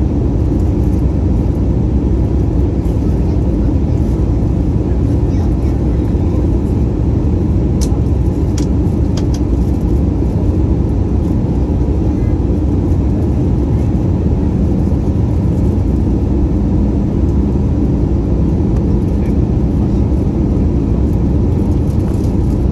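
Steady low roar inside an airliner cabin in flight, the jet engines and rushing air of a Peach Aviation Airbus A320-family jet during descent. A few faint clicks about eight to nine seconds in.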